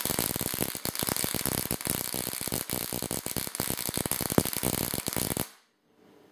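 Ruhmkorff induction coil throwing a rapid stream of high-voltage sparks from a bolt to a pie-tin ring on a lightning wheel, crackling steadily. It cuts off suddenly about five and a half seconds in.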